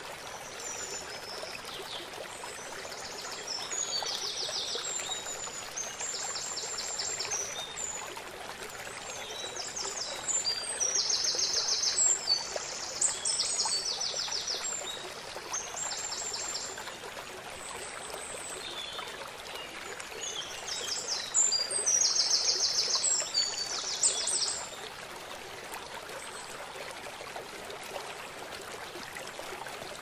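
Steady rush of running water from a stream or small waterfall. A songbird sings over it in phrases of rapid high trills through the first twenty-five seconds or so, loudest in two spells around the middle and just past two-thirds of the way, then stops.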